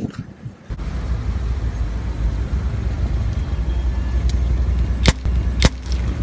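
Car's low steady rumble as its tyre rolls onto a small yellow object on asphalt and flattens it. Near the end come two sharp cracks about half a second apart.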